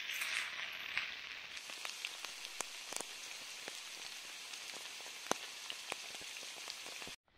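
Potatoes frying in a pan over a campfire: a steady sizzle with scattered sharp pops and crackles, cutting off abruptly near the end.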